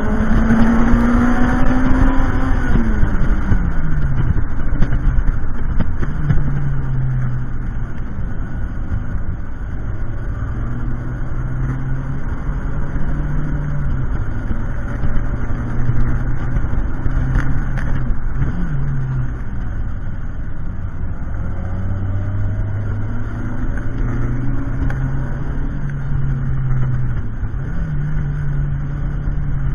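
Toyota MR-S with a swapped-in 2ZZ-GE 1.8-litre four-cylinder, heard from the open cockpit on a circuit lap. The engine revs hard, then drops steeply in pitch about three seconds in as the car slows, and pulls through the gears with several shifts. Heavy wind rumble sits on the microphone.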